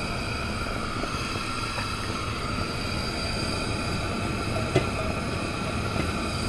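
Steady rushing hum from the gas stove while an empty wok heats on the burner, with one light click about five seconds in.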